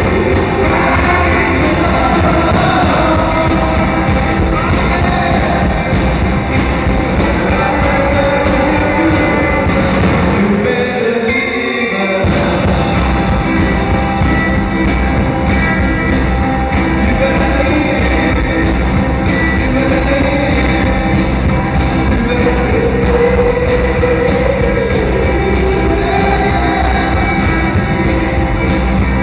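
Live rock-and-roll band playing, with electric guitars, bass guitar, drum kit and singing. About ten seconds in, the drums and bass drop out for a moment, then the full band comes back in.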